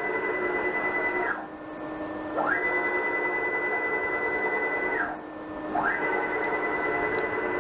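Stepper motors of a 6040 CNC router driving the spindle head back and forth along the X axis in rapid moves. They make a whine that climbs quickly to a steady high pitch, holds, then drops away quickly. One move ends about a second and a half in, and two more full moves follow with short pauses between. The quick rise and fall of the pitch comes from the X-axis acceleration just set to 200 in Mach3's motor tuning, giving fairly immediate acceleration and deceleration.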